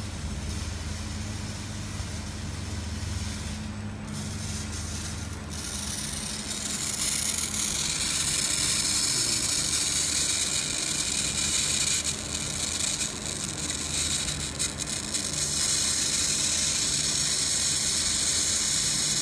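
Hollow pipe making machine running with a steady low hum. About six or seven seconds in, a loud steady hiss joins it and holds, dipping briefly a couple of times.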